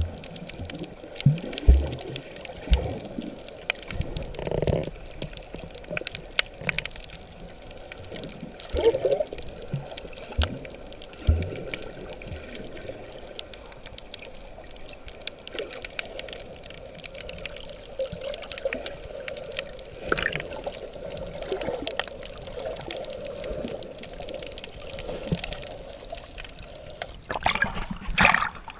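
Muffled underwater sound picked up through a waterproof action-camera housing: water gurgling and sloshing, with scattered low thumps. Near the end comes a loud splash as the camera breaks the surface.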